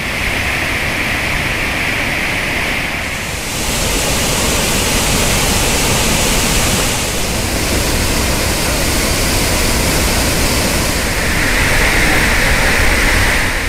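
Roaring white water of the Kaveri at Hogenakkal falls and rapids, running high after continued rain in its catchment: a loud, steady rush. It turns brighter and hissier about three seconds in, then lower again near the end.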